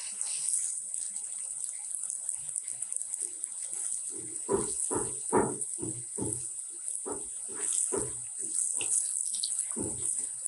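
Hot oil sizzling steadily in a kadai as farali bafvada, boiled-potato balls coated in water-chestnut flour, deep-fry on a low flame. From about four seconds in, a run of irregular low knocks comes as a slotted spoon turns them in the pan.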